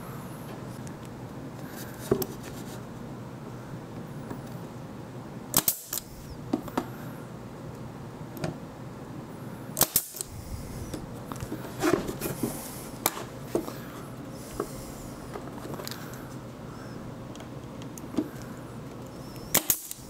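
Pneumatic brad nailer shooting brads into western red cedar boards: a series of sharp shots at irregular intervals, some in quick pairs.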